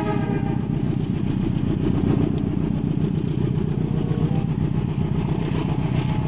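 Diesel locomotive hauling a passenger train, its engine and running gear giving a steady low rumble as it passes.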